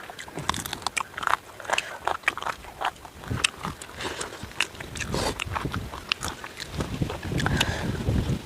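Someone eating tandoori chicken: biting and chewing close to the microphone, with irregular crunchy clicks and wet mouth sounds.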